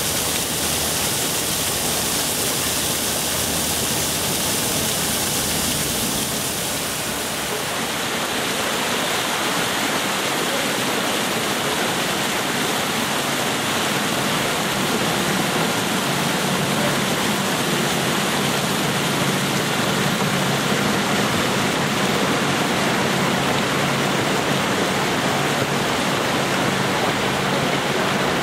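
Fountain water splashing and falling in a steady rush. The rush changes in character about seven seconds in.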